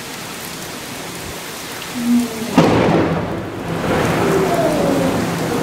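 Heavy rain falling steadily, then about two and a half seconds in a lightning strike very close by: a sudden sharp thunderclap that runs straight into a loud rolling rumble.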